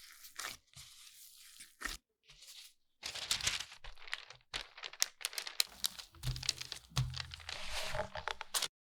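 Crinkly wrapping being handled and torn, in short cut-together bursts. From about three seconds in it grows louder and denser, with many sharp crackling clicks and a few low thumps.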